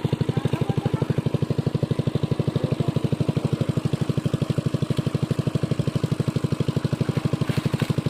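A small engine running steadily at an even speed, its fast regular knock unbroken.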